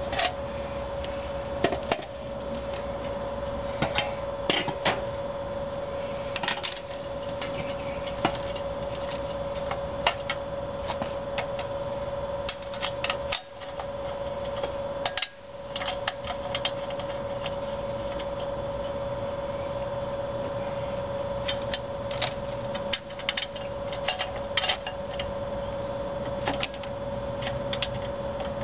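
Scattered metallic clinks and knocks as a clutch disc and pressure plate are handled and seated against a Chevy 350 small-block's flywheel, over a steady background hum.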